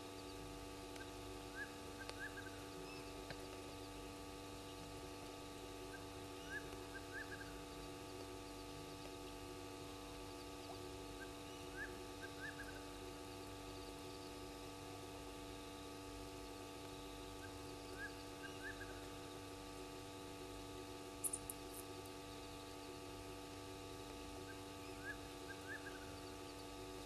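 A steady electrical hum, with a faint animal call repeating about every five to six seconds as a quick group of two or three chirps. A single sharp click comes a little after two-thirds of the way through.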